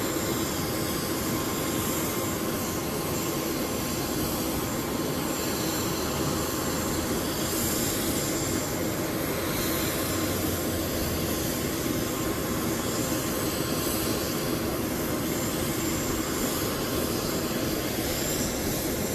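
Jet aircraft engines running steadily: an even rushing roar with a high, constant whine over it.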